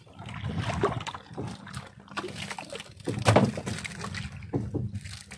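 Water splashing and dripping as a fish on a longline is brought over the side of a small boat, with irregular knocks of handling and one louder knock about three seconds in.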